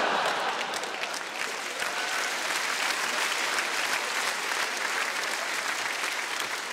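Large theatre audience applauding with dense clapping, loudest at the start and easing off slowly.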